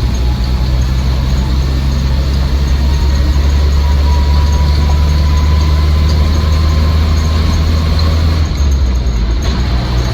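Cabin sound of a 1962 Land Rover Series IIa 109's 2.25-litre petrol four-cylinder engine and drivetrain on the move: a steady low drone with a faint high whine through the middle. The drone eases a little about eight and a half seconds in.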